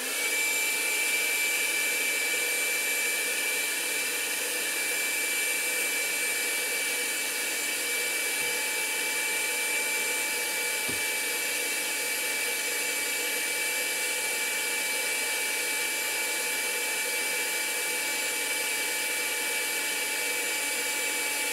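Electric heat gun (paint stripper) running steadily, its fan blowing hot air with a steady high-pitched whine.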